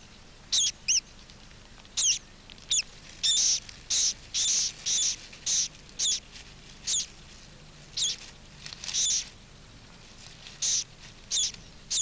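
Sedge warbler calling: a string of short, high chirps, each a quick sweep in pitch, repeated irregularly about one or two times a second.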